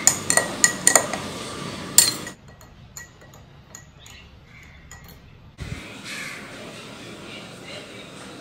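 A metal spoon stirring the chia-seed drink in a glass, clinking against the side about three times a second and ending on one sharp clink about two seconds in. Then only faint background sound.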